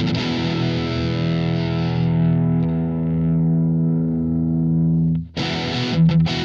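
Distorted electric guitar played through a Blackstar ID:Core Stereo 40 modelling amp: a chord rings out and sustains for about five seconds, its treble dying away, then is cut off and a run of short, clipped chords follows.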